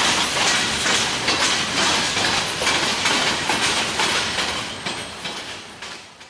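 Freight train cars rolling past, their steel wheels clicking rhythmically over rail joints, with a steady rumble and rattle. The sound fades out near the end.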